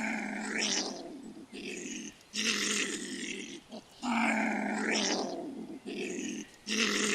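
Marten growling: a deep, vicious-sounding growl given as about six rough growls in a row, some long and some short.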